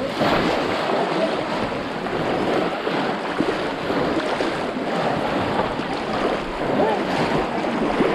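Water splashing and churning as many people wade through a shallow, muddy pond, with scattered shouts from a crowd mixed in.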